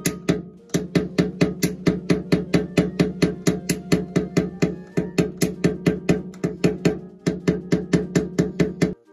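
Steady, rapid tapping at about five strikes a second, each with a hollow, woody ring: light hammer taps on a knockdown tool, raising or knocking down paint-free-dent-repair high spots on a steel motorcycle fuel tank. The tapping pauses briefly twice and stops abruptly near the end.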